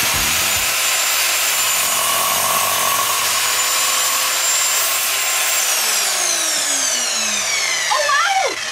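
Dexter Power mitre saw running at full speed as its blade is lowered through a wooden plank, cutting. About five and a half seconds in the motor is switched off and its whine falls steadily in pitch as the blade spins down.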